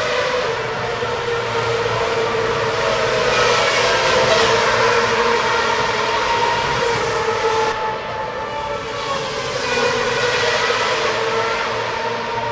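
Racing car engines running at high revs, a dense whine of several tones that glide up and down as cars pass, with a brief drop in level about eight seconds in.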